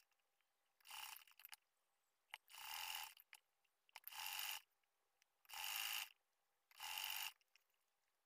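Haier domestic sewing machine stitching in five short stop-start runs of about half a second each, roughly one and a half seconds apart, as the fabric is guided around a curved neckline seam.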